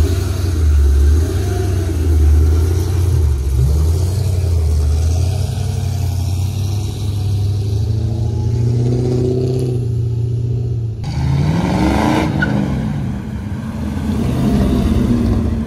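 Car engines running with a deep, steady low rumble. About eleven seconds in, an engine revs, its pitch sweeping up and then back down over a couple of seconds.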